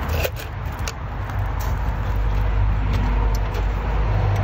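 A car engine idling with a steady low rumble, with a few light clicks of hand tools over it.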